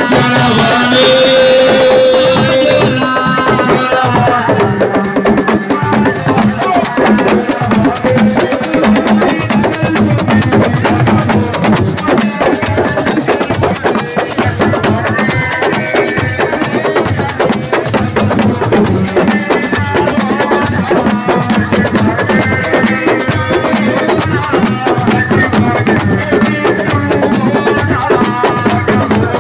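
Live assiko band music from Senegal: dense, fast hand-drum rhythm with a melodic line over it.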